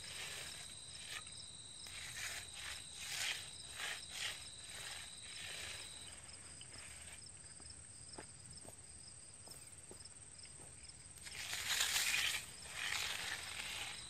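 Magnesium hand float swishing across the wet concrete slab in repeated strokes, smoothing the fresh surface before it is broomed; the loudest stroke comes near the end, with a few light clicks in the middle. A steady high-pitched insect buzz runs behind it.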